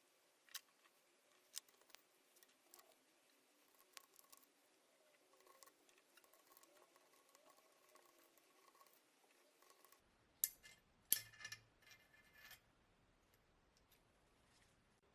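Mostly near silence with scattered faint clicks, then a short cluster of louder metallic clinks with a brief ringing about ten seconds in: tools and small metal parts handled while stripping a cylinder head.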